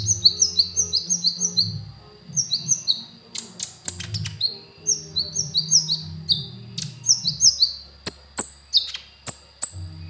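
Sunbird (the 'kolibri ninja' of Indonesian bird keepers) singing a rapid, chattering series of short, high, falling chirps in bursts, with a few sharp clicks in between.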